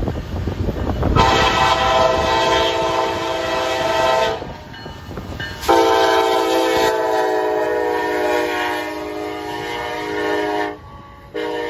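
Very loud Nathan K5LA five-chime air horn on a Kansas City Southern EMD SD70ACE locomotive, sounding two long blasts of about three and five seconds, with a third starting near the end: a grade-crossing signal as the locomotive passes. The diesel rumble of the locomotives is heard beneath the horn at the start.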